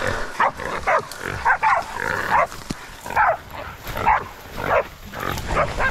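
Feral boar squealing in a series of short cries while pig dogs hold it, mixed with dog barking.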